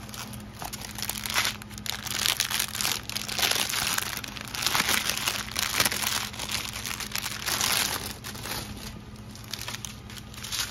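Clear plastic packaging of a diamond painting kit crinkling in irregular bursts as its bags are handled, over a steady low hum.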